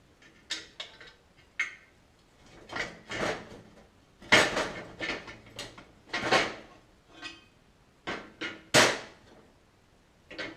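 Metal strut-jig parts being handled and pulled apart by hand: about a dozen irregular clunks and clicks, some with a short ring.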